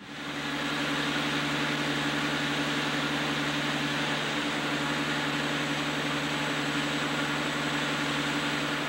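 Nickel Plate Road 2-8-4 steam locomotive No. 765 standing under steam: a steady, unbroken hiss with a low, even hum beneath it.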